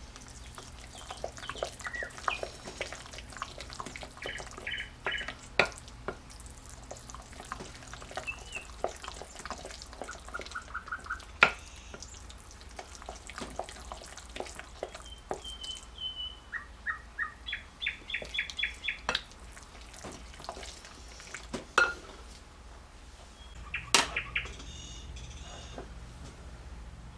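Small bird chirping in quick runs of short high notes, with scattered light clicks and taps between them.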